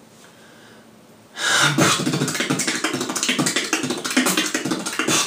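A beatboxer breaks in about a second and a half in with a fast, unbroken beatbox combination: a dense, rapid run of percussive mouth sounds, which he offers as his fastest and longest combination.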